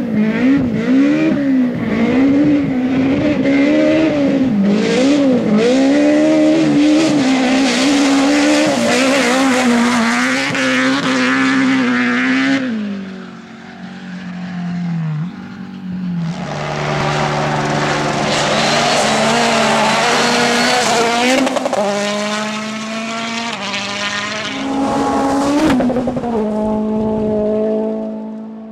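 Rally cars at full speed, engines revving hard and shifting, the pitch swinging up and down. About thirteen seconds in the sound drops away briefly before another car comes through, held at steadier high revs near the end.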